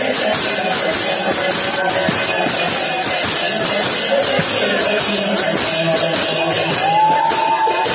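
Odia sankirtan music: brass hand cymbals clashing continuously over drumming. Near the end a melodic note slides up and is held.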